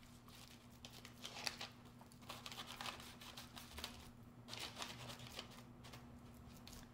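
Faint, irregular crinkling and rustling of parchment paper as hands press and smooth a slab of raw ground meat on a baking sheet, with soft pats on the meat. A low steady hum runs underneath.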